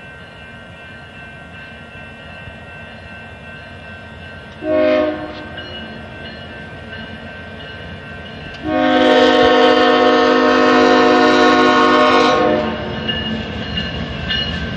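Union Pacific diesel freight locomotive sounding its horn for a grade crossing: a short blast about five seconds in, then a long blast lasting nearly four seconds, the loudest sound here. Under both runs the steady rumble of the approaching train.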